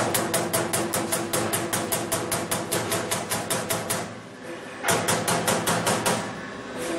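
Euromac ZX CNC turret punch press punching sheet steel: a rapid, even run of sharp punch strokes, about six a second, that stops for about a second near the middle and pauses again briefly near the end.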